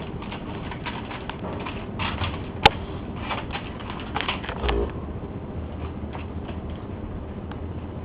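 Kittens playing: scattered light scratching and tapping, with a sharp click about two and a half seconds in, over a steady background hiss.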